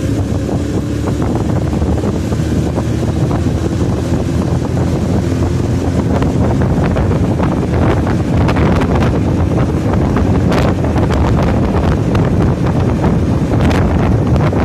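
Heavy wind buffeting the microphone: a loud, steady low rumble, with crackles and knocks from about six seconds in.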